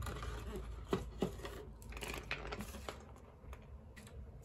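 Cardboard box handled and a chocolate Easter egg's foil wrapper crinkling and tearing as the egg is lifted out and unwrapped, with two sharper clicks about a second in.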